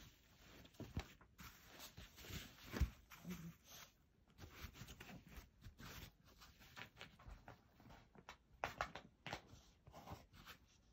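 Faint, irregular rustling and clicking from a handheld phone being handled, with one louder knock about three seconds in.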